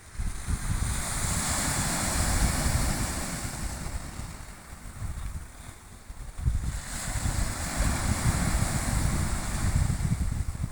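Sea waves breaking and washing up the shore, swelling twice with a lull between, with wind rumbling on the microphone.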